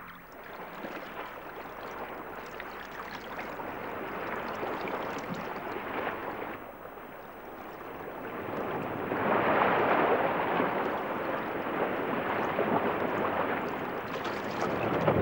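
Waves washing onto a sandy shore: a steady rushing that dips about seven seconds in and swells again a couple of seconds later.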